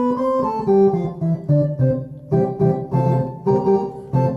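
Roland VR-09 synthesizer playing a transistor-organ-style patch built from triangle waves: a quick run of chords and single notes, each new one struck every third to half second.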